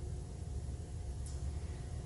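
Room tone during a pause in speech: a steady low hum with a faint hiss.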